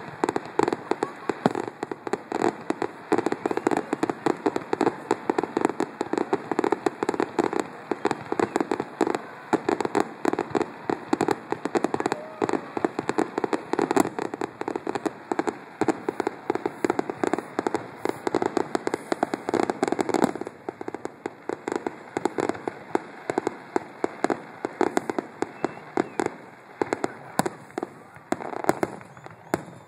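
Fireworks grand finale: a dense barrage of aerial shells bursting, many sharp bangs a second overlapping with crackling, easing slightly about two-thirds of the way through.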